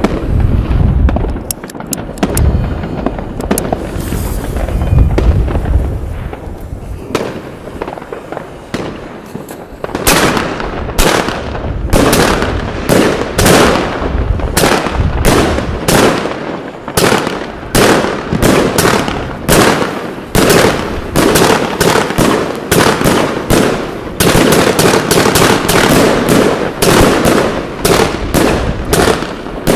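A 160-shot fireworks cake firing. A low rumble with a few scattered pops comes first, then from about ten seconds in a rapid, steady run of shots bursting, about two to three bangs a second.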